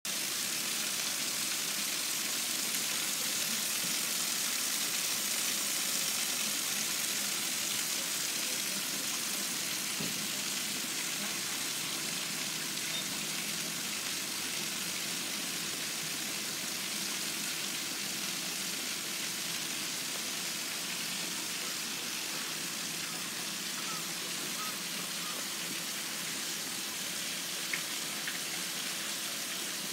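Steady hiss of running water in a penguin pool, even and unbroken throughout, with a single small click near the end.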